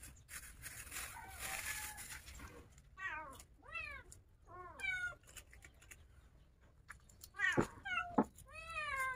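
A cat meowing over and over: short meows that rise and fall in pitch, in runs of two or three, with a couple of sharp knocks among them near the end.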